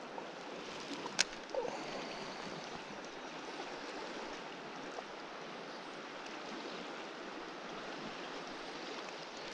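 Steady rush of flowing river water, with one sharp click about a second in.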